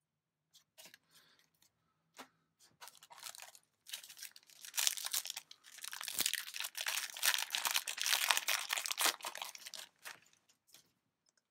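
A foil Yu-Gi-Oh! booster pack being torn open, its wrapper crinkling and crackling. A few light clicks come first, then the tearing and crinkling runs dense and loud from about a third of the way in until shortly before the end.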